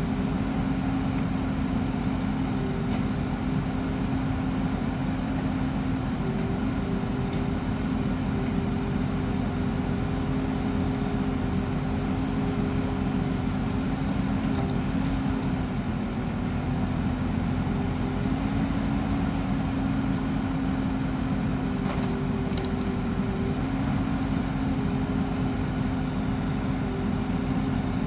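Forwarder's diesel engine running steadily while its hydraulic crane works, with a constant hum and a higher tone that comes and goes several times.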